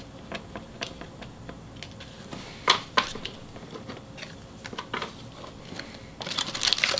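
Trading cards being handled and tapped together, light scattered clicks with two sharper taps partway through. Near the end a card pack wrapper starts crinkling as the next pack is picked up.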